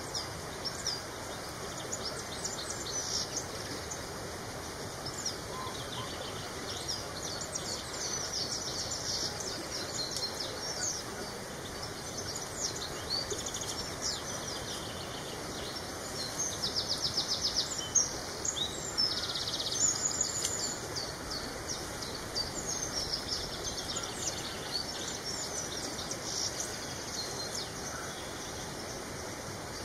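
Several kinds of wild birds singing and calling at once: a dense run of short high chirps and whistles over a steady outdoor hiss, with a fast rattling trill standing out a little past halfway.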